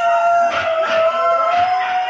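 A husky howling one long, steady note, layered with other husky howls playing from a computer's speakers.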